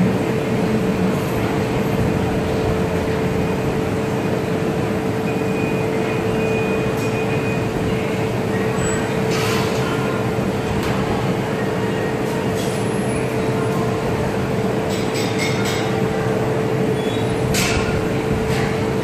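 Steady roar of a glassblowing workshop's gas-fired furnace and burners, with electric fans running and a constant hum. A few faint clicks come through, around the middle and again near the end.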